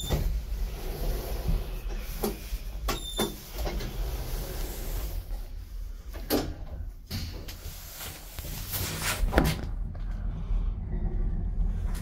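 Kone elevator: a car button press with a short electronic beep, a second beep about three seconds later, then the doors sliding shut with a few knocks, over a steady low hum.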